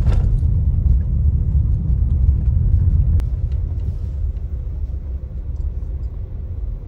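Steady low rumble of a car, engine and road noise, easing a little toward the end, with a single sharp click about three seconds in.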